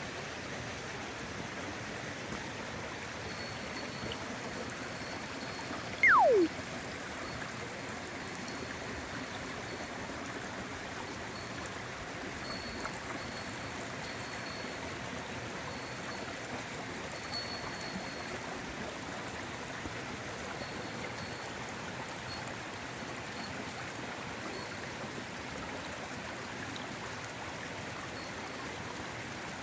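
Steady rush of running water, a stream flowing. About six seconds in, a single short, loud whistle slides sharply down in pitch.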